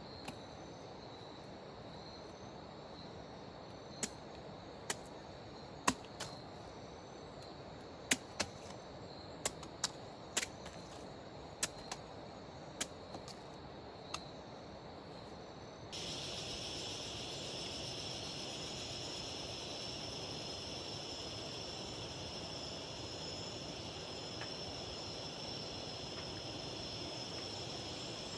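Scattered sharp clicks and snaps, irregular and a second or so apart, over a faint high hum. About halfway through a steady, high-pitched chorus of rainforest insects comes in abruptly and carries on.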